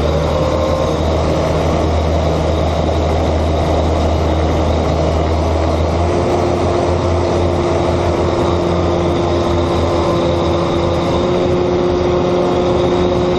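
Onboard sound of a small fixed-wing unmanned aircraft in flight: its propeller and motor running steadily under wind noise, the tone shifting slightly about six seconds in.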